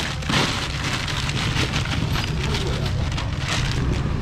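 Rain pattering steadily, with a steady low rumble underneath.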